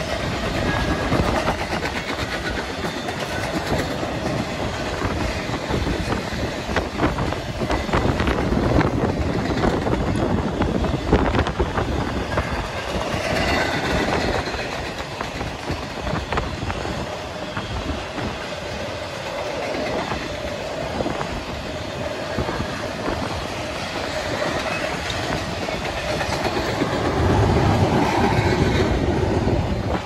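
Norfolk Southern intermodal freight cars rolling past: a continuous rumble of steel wheels on rail with repeated clicking as the wheels cross rail joints.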